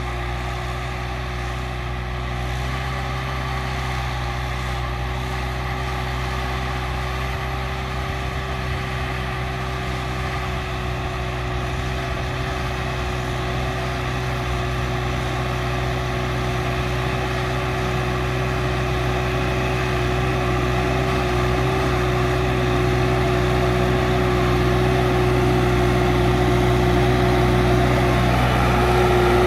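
New Holland TT4.75 tractor's diesel engine running steadily under load while ploughing, growing louder as the tractor comes closer. A steady whine runs with it and steps up slightly in pitch near the end.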